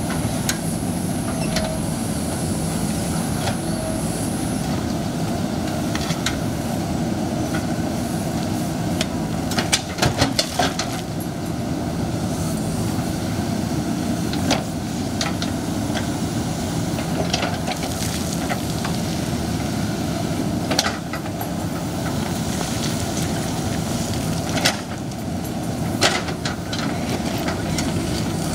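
Excavator's diesel engine running steadily under load, with scattered sharp knocks and clatters of stone as the bucket works boulders, a cluster of them about a third of the way in.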